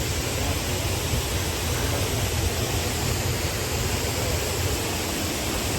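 Waterfall rushing steadily: a constant, even wash of falling water.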